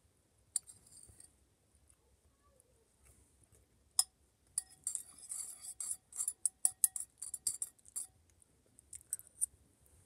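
Cutlery clinking and scraping against a bowl while eating rice. There is one sharp clink about half a second in and another at four seconds, then a quick run of clinks and scrapes for about four seconds, with a few more near the end.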